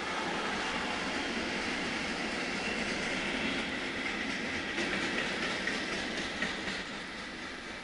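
Container freight train rolling past: a steady rumble of wagon wheels on the rails, with quick clicks of wheels over rail joints and points, busiest about four to six seconds in. It eases off a little near the end.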